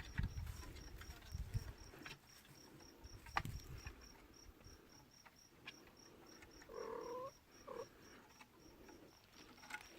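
A kitten meows twice about seven seconds in, one longer call and then a short one, among light knocks and rustling. A faint, high, even pulsing runs underneath, about five or six pulses a second.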